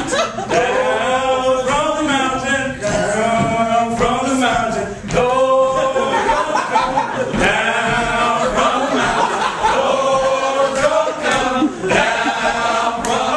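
A few men singing together a cappella, an improvised church-style song with held, wavering notes.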